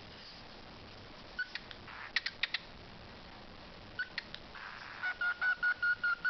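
Pet talking bird making a few sharp clicks, then a quick run of short, even beeping notes at one pitch, about five a second, beginning near the end.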